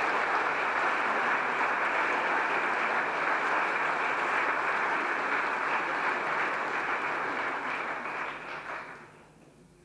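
Congregation applauding in a church, a dense steady clapping that dies away about nine seconds in.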